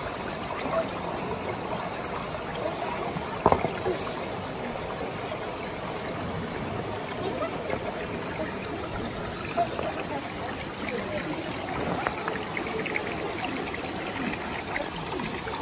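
Stream water running steadily over rocks. A single short, sharp click comes about three and a half seconds in.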